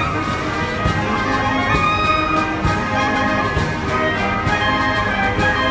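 Wind band of clarinets, saxophones, bassoon and brass playing a piece, with held chords over a moving melody.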